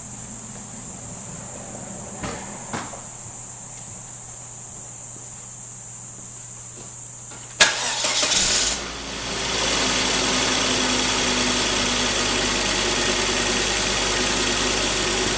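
Crickets chirping in a steady high trill with two light clicks, then about halfway through a Volvo XC90's engine cranks and starts with a brief loud burst, settling a couple of seconds later into a steady idle.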